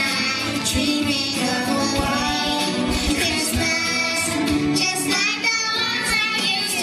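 Young children singing a song through stage microphones over backing music.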